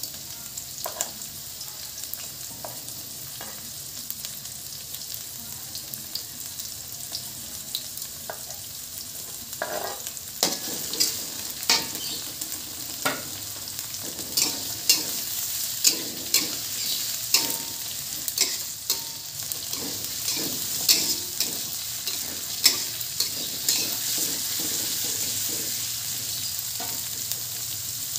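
Chopped onion, garlic and chillies sizzling in hot oil in a wok, a steady frying hiss. From about ten seconds in, a metal spatula repeatedly scrapes and knocks against the pan as the food is stirred, about one to two strokes a second.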